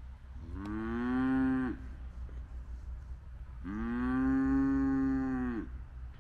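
Hereford cattle mooing: two long moos a couple of seconds apart, the second one longer. Each rises in pitch at the start, holds steady and drops away at the end.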